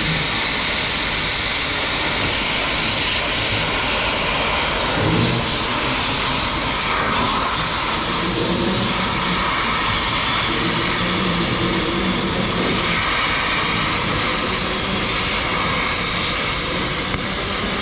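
Cutting torch burning with a steady, jet-like hiss while it cuts scrap metal.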